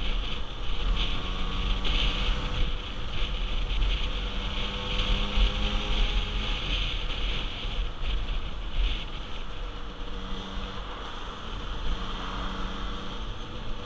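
50cc motorbike engine running steadily under way, its note wavering slightly with the throttle, under heavy wind rush on the helmet-mounted microphone.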